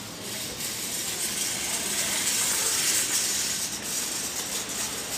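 A steady hiss of outdoor background noise, strongest in the high range, swelling slightly in the middle, with no distinct events.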